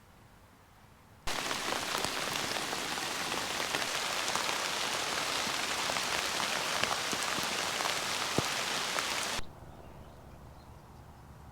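Rain falling steadily: a dense hiss of drops with many small individual taps. It starts abruptly about a second in and cuts off abruptly about two seconds before the end.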